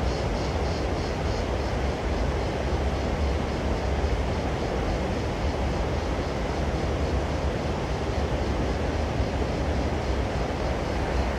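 Steady low outdoor rumble with no clear events, with a faint high ticking at about three or four pulses a second that fades out in the first couple of seconds.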